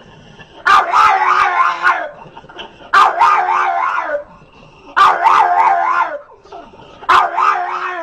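A dog making four drawn-out, wavering cries in a row, each about a second long with a sharp start, in the excited vocalising of a 'talking' dog.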